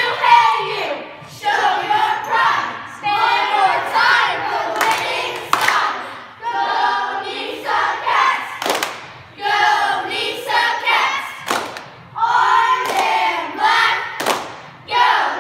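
A group of young girls chanting a cheer in unison, in short rhythmic phrases, with sharp claps and thuds between them.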